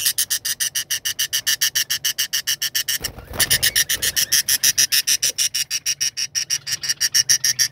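A fast, even pulsing trill, about ten pulses a second, typical of a cricket or similar night insect, going on without a break. About three seconds in, a brief low bump of handling noise.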